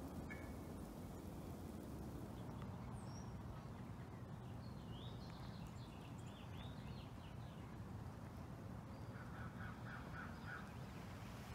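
Faint outdoor ambience: a steady low background rumble, with small birds chirping a few seconds in and a short run of repeated bird calls near the end.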